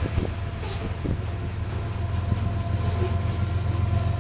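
A freight train's covered hopper cars rolling past with a few wheel clacks over the rail joints, then its rear pair of Union Pacific distributed-power diesel locomotives coming up, whose engines add a steady low drone that grows louder.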